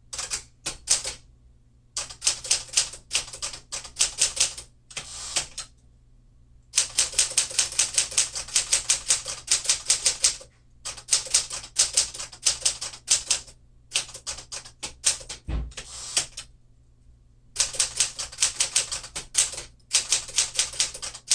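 1952 Smith-Corona Clipper manual typewriter being typed on: quick runs of sharp key strikes, several a second, broken by short pauses, with one heavier low thump about two-thirds of the way through.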